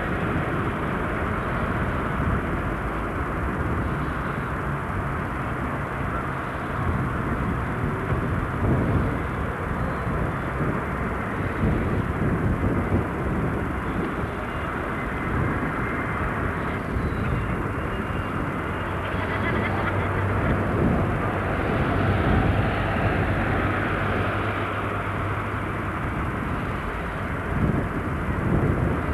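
A steady, engine-like drone with outdoor background noise and faint voices.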